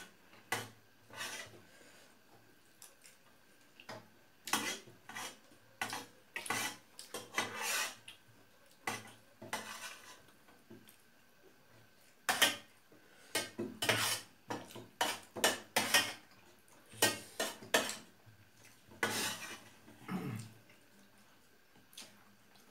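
Metal spoons clinking and scraping against metal dinner plates as several people eat, in irregular short clinks and scrapes.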